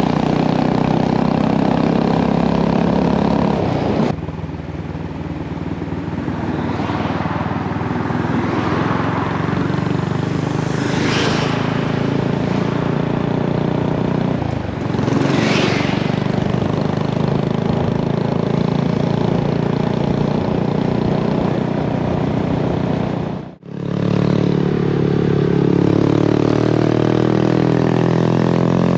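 Honda Grom's 125 cc single-cylinder four-stroke engine accelerating on level road through a conical aftermarket muffler with a homemade end baffle. Its pitch climbs and then drops at each gear change, and the narrowed, lengthened baffle makes the exhaust crisper and quite quiet. After a sudden cut about three-quarters of the way through, the engine pulls uphill under load through a different, multi-angle aftermarket muffler.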